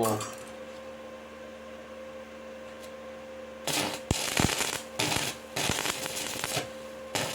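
Stick-welding arc crackling and spitting in uneven bursts from about halfway in, after a stretch of steady low hum.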